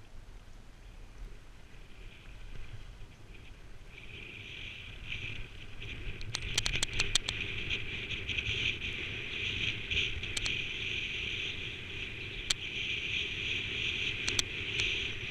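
Skis sliding on packed snow, a steady scraping hiss that grows louder about four seconds in as speed builds. A quick run of sharp clicks comes about six to seven seconds in, with a few single clicks later.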